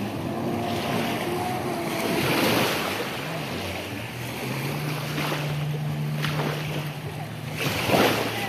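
Kawasaki Ultra 310LX jet ski running at speed, its supercharged four-cylinder engine a steady distant hum under rushing water and wind against the microphone, with a louder gust or splash near the end.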